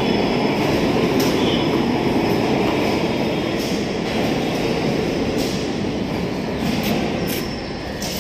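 Passenger rail coach rolling slowly on the rails, a steady rumble with a few sharp wheel clicks, growing a little quieter near the end as it moves away.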